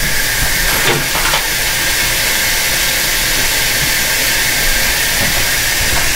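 A steady hiss, with a couple of faint knocks about a second in.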